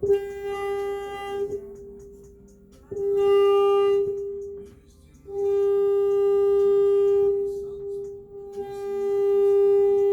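Marshall JCM 2000 guitar amplifier being test-played after a repair, sounding a steady, reedy mid-pitched tone that is held, drops out briefly and comes back several times.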